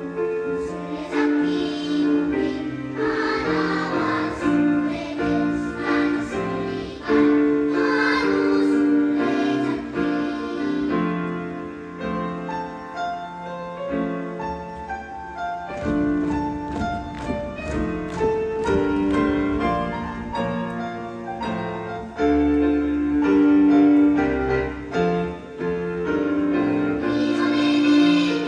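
Children's choir singing with instrumental accompaniment that includes piano.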